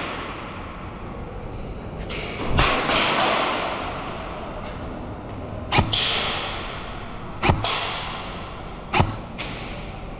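Airsoft guns firing single shots: four sharp cracks a second or more apart, each trailing off over about a second, with a few fainter clicks between them.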